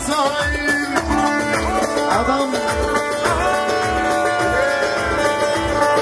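Live Turkish folk music: a man sings an ornamented melody into a microphone over a bağlama (long-necked saz), with a steady beat about three times a second.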